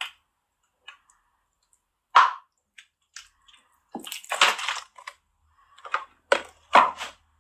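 Plastic squeeze bottle of lemon juice squeezed over the dessert in a few short squirts, the last ones coming quickly one after another.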